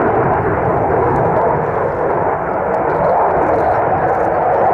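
Belgian Air Force F-16 Fighting Falcon's single Pratt & Whitney F100 turbofan in flight as the fighter manoeuvres: a loud, steady jet rush with no breaks.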